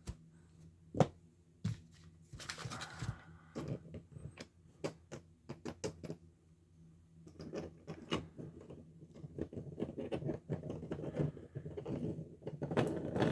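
Hands handling small hard items while unboxing: scattered clicks and taps, with a brief rustle of packaging about three seconds in and busier clicking in the second half.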